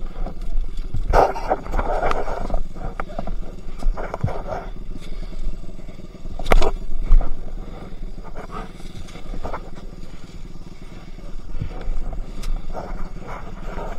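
Enduro dirt bike running on a rough trail, with a steady low rumble and many knocks and rattles from the ride. A sharp bang about six and a half seconds in is the loudest sound.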